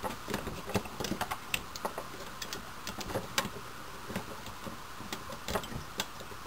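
Hard plastic toy parts clicking and tapping irregularly as an action figure is handled and pressed onto the seat of a plastic toy motorcycle.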